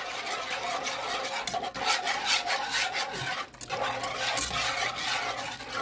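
A whisk scraping and stirring rapidly in a pan, beating flour into butter and pan juices to make a gravy, with a brief pause about three and a half seconds in.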